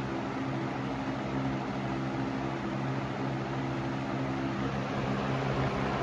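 20-inch box fan running steadily: a low electric motor hum under the even rush of air off the spinning blades.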